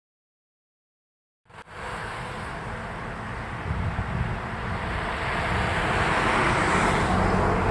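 Dead silence for about a second and a half, then a steady rushing of wind on the microphone mixed with road traffic, slowly getting louder.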